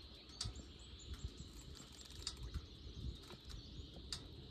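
Faint outdoor ambience: scattered short, high bird chirps and light clicks over a low rumble.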